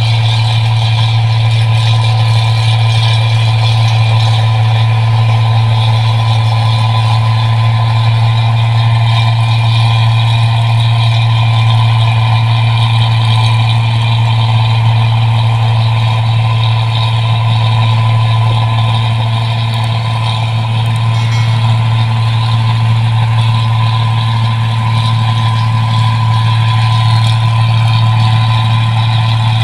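New Holland 1545 combine harvester running steadily, a loud, even machine drone with a strong low hum that holds the same throughout.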